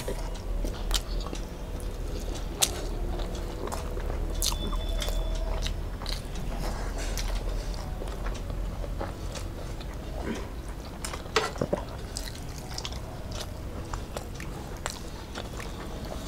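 Close-miked chewing and wet mouth sounds of people eating rice and curry by hand, with scattered sharp smacks and clicks.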